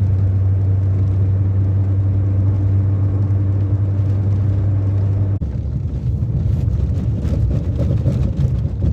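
A loud, steady low rumble with a constant hum, changing abruptly about five seconds in to a rougher rumble with crackling.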